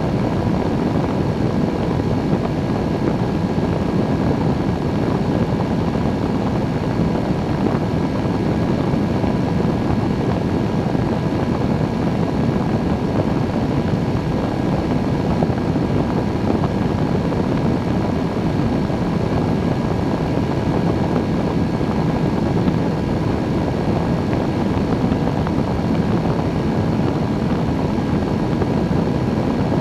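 Microlight trike's engine and pusher propeller running at steady cruise power, a constant drone with a few steady tones over it, mixed with wind rushing past the wing-mounted camera.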